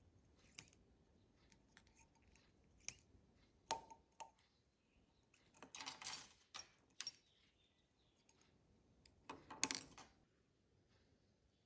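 Faint clicks and small rustles of hand tools working thread at a fly-tying vise, with two short, louder scraping bursts, one about six seconds in and one near the end.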